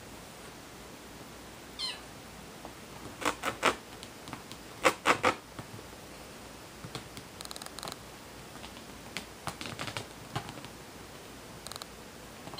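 Bengal kitten giving several short mews in quick clusters, the loudest a few seconds in. Between them come lighter scratches of its claws on the sofa upholstery.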